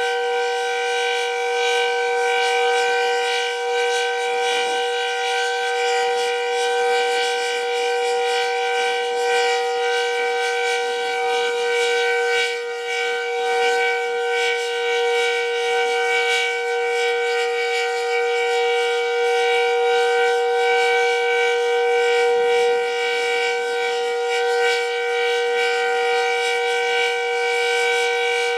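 Decot Red Arrow Model 12 outdoor warning siren sounding a steady full alert signal: a loud, sustained chord that holds its pitch without rising or falling.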